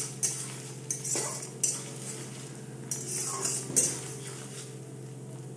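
Metal spatula scraping and clinking against a metal kadai while stirring onion, ginger and green chilli frying in oil, a few strokes about a second apart.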